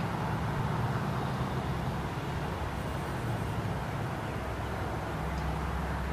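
Steady low rumble of road traffic, with cars passing over a distant grade crossing.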